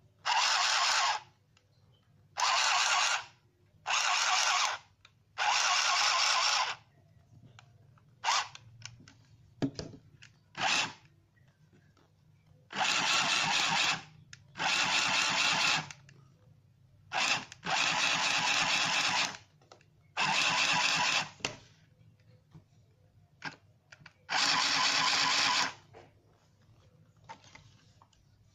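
Battery-powered Handy Stitch handheld sewing machine running in short bursts of about a second each, with a few brief taps in between, as it stitches through fabric. There are about ten runs in all.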